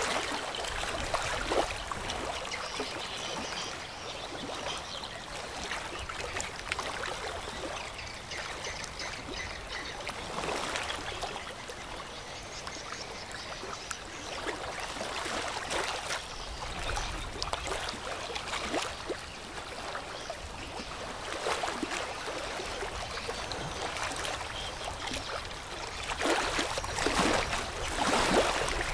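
Water rushing and splashing, swelling in uneven surges every few seconds.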